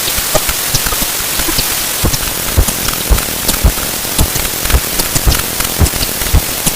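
Sound effects sped up 64 times: a steady hiss packed with irregular clicks and low thumps, several a second, giving a rain-like patter.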